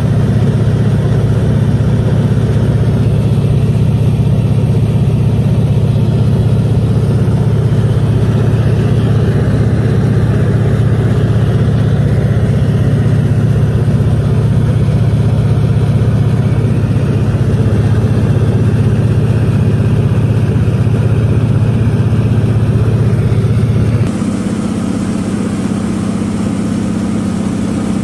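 A large engine running steadily with a strong low hum. About 24 seconds in, the sound drops a little in level and the hum shifts higher in pitch.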